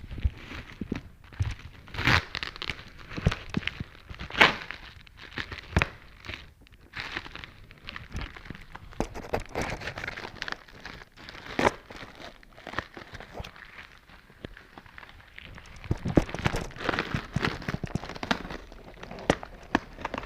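Shoe-box unpacking: paper and packaging rustling and crinkling, with irregular sharp clicks and knocks of cardboard being handled.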